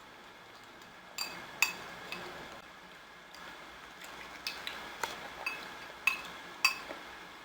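Eating utensil clinking and tapping against a dish while stew is scooped up: a few sharp ringing clinks about a second in, then a quicker run of them over the last few seconds.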